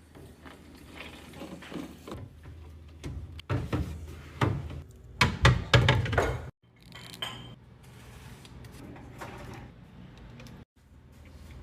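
Containers and jars being set down and shifted around on fridge shelves: a run of knocks and clinks, busiest and loudest about four to six seconds in.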